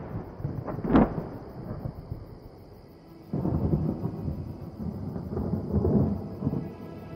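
Thunder: a sharp crack about a second in that dies away, then a long, low rumble that sets in suddenly a little after three seconds.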